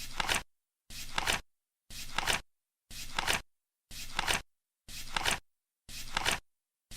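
Flip clock's number flaps flipping over once a second, seven times: each flip is a half-second flutter that ends in a sharper click.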